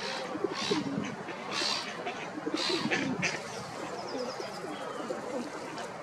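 Gulls calling: short high calls about a second apart through the first half, then a quick run of thin high chirps about four seconds in.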